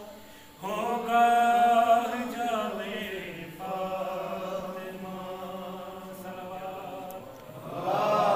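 A man's voice chanting an Urdu devotional poem unaccompanied, in long drawn-out melodic phrases with short pauses between them. A louder phrase comes near the end.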